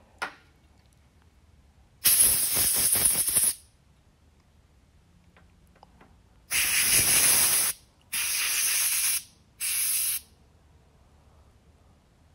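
Aerosol brake cleaner sprayed in one long hissing burst, then a compressed-air blow gun blasting in three shorter bursts. Both are clearing thread-cutting oil out of a freshly tapped shock reservoir part.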